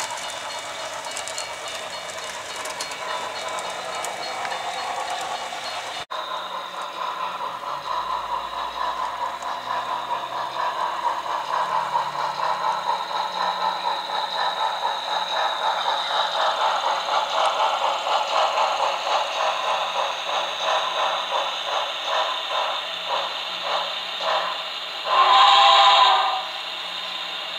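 Model train sound decoder: steady train running noise, then after a cut a steam locomotive's rhythmic chuffing that slows as the train eases to a stop, and one whistle blast of about a second and a half near the end.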